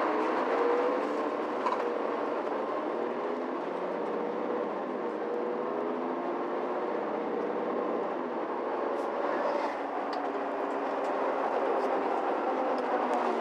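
Mercedes-Benz Citaro C2 G articulated bus with its Euro 6 tower-mounted diesel engine running, heard from inside the bus as a steady engine drone over constant rushing noise, its pitch drifting slowly up and down.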